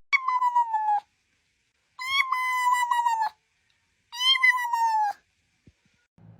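A cat meowing three times, each a long call of about a second that falls slightly in pitch.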